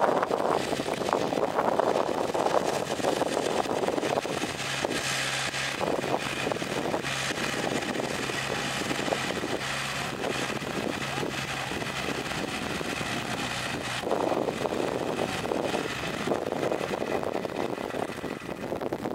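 Small Kumiai farm tractor's diesel engine running steadily as it pulls a loaded concrete-mixer trailer. A steadier hum holds through the middle stretch, with rougher clatter toward the start and end.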